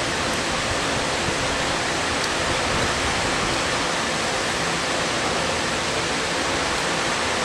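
Steady, even rushing noise with a faint low hum under it, unchanging and without clear tool strikes.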